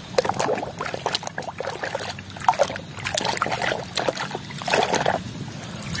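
Plastic toy bulldozer swished by hand through a tub of muddy water: irregular splashing and sloshing, busiest about five seconds in.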